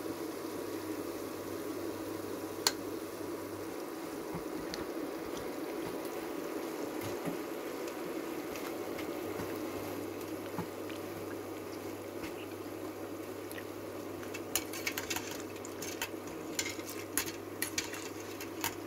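Sesame balls (buchi) deep-frying in a pot of oil, the oil bubbling steadily. One sharp click about three seconds in, and a run of light metal clicks and taps near the end as a wire spider strainer and spoon work the balls against the pot.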